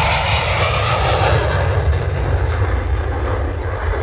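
Aircraft passing low and loud overhead. The rush of its engine peaks early, then dulls and fades a little as it moves away.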